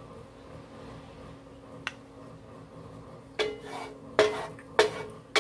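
Wooden spatula knocking and scraping against an electric skillet. There is a light click a couple of seconds in, then four sharp knocks, each with a short ring, in the second half.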